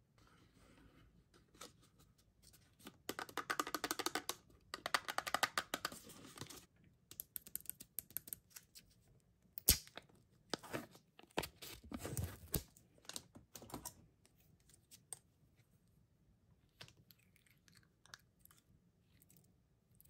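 Close-up handling of candy and plastic packaging: two bursts of rapid crackling and clicking, then a sharp snap and crackling tearing as the clear plastic seal is peeled off a jello cup, followed by faint scattered clicks.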